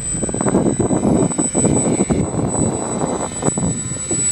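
Wind buffeting the camera microphone: a loud, uneven rushing with gusty surges.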